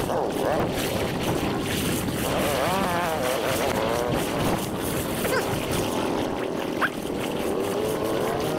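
ATV engine running under riding, its pitch rising and falling as the throttle changes, with wind rushing over the microphone.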